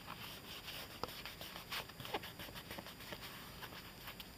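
Fingers pressing and rubbing pieces of leather, with soft rustling and scattered small clicks and creaks, a few a little louder about a second and two seconds in.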